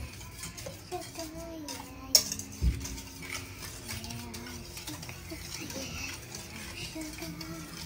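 Wire whisk beating eggs and sugar in a stainless steel bowl: a quick, continuous clinking and scraping of the wires against the metal. Two sharper knocks land a little over two seconds in.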